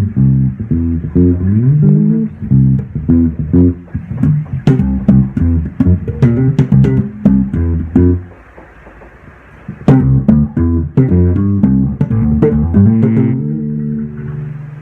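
Bass guitar played solo: a quick run of plucked low notes with some slides between them. After a pause of about two seconds, more notes follow, ending on a held note that fades.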